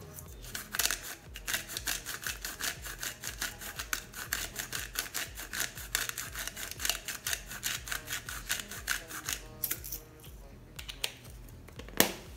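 Hand-twisted salt grinder being turned over a pot, giving a fast, even run of ratcheting clicks, about five a second, that stops about nine and a half seconds in. One sharp knock near the end.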